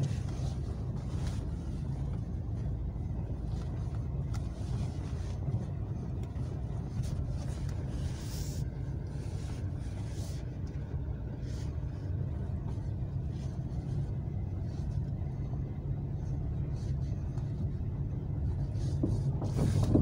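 Dacia Sandero Stepway driving slowly over a snow-covered track, heard from inside the cabin: a steady low engine and tyre rumble with scattered faint clicks, swelling louder near the end.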